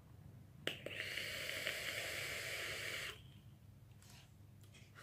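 A sub-ohm e-cigarette being drawn on: a click about a second in, then a steady hiss of air and vapour pulled through the atomizer for about two and a half seconds, stopping abruptly.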